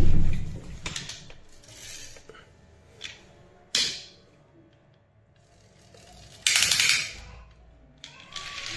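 A die-cast pull-back toy car, a 1:38 Kinsmart Aston Martin Vulcan, being handled on a tiled floor. There is a loud thump at the start and a sharp clack near four seconds in. About six and a half seconds in comes a short, rasping whirr of under a second as the car is dragged backwards, winding its pull-back motor.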